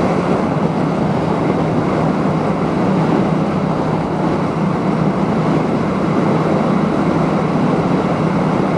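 Yamaha MT-07 parallel-twin motorcycle engine running under acceleration through an aftermarket Akrapovic titanium exhaust, mixed with steady wind rush, heard from inside a full-face helmet.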